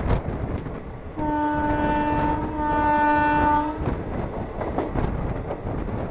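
Train horn sounding one steady blast of about two and a half seconds, with a brief dip midway. Under it and around it, the rumble and wheel clatter of the express coaches running at speed.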